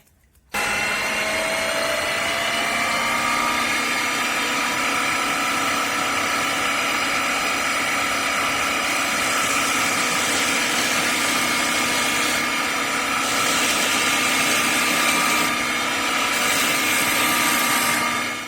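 Homemade wood lathe running while a turning chisel cuts into a spinning oak bowl blank to hollow out its inside: a steady whine with a dense cutting hiss. It starts suddenly about half a second in and cuts off abruptly just before the end.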